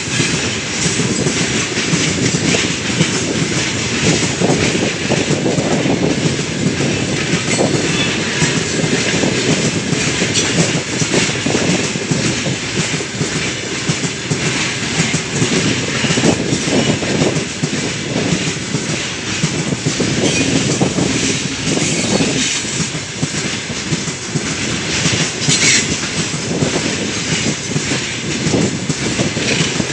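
Open gondola wagons of a long, heavy freight train rolling past close by: a steady rumble with wheels clacking over the rail joints. A brief high wheel screech comes near the end.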